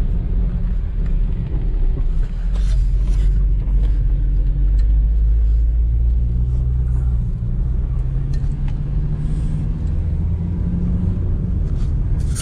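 A car driving, heard from inside the cabin: a steady low rumble of engine and road noise, its engine tone shifting in pitch as the speed changes.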